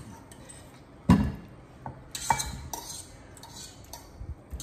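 A cooking utensil knocking and scraping against a metal bowl and saucepan while sauce is mixed. There is one loud knock about a second in, followed by a few lighter clatters and clinks.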